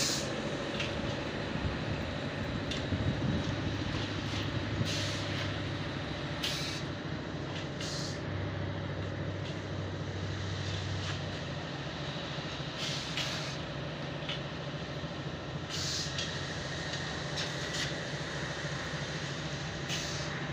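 Steady low mechanical hum under a noisy hiss, with scattered light knocks and clicks.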